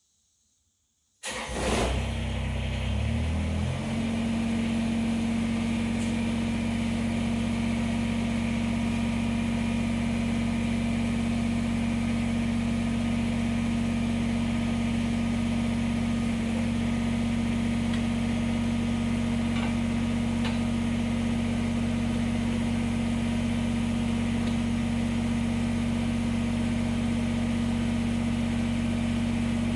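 Kubota BX23S compact tractor's three-cylinder diesel engine starting up about a second in, its note shifting for a couple of seconds before it settles into a steady idle.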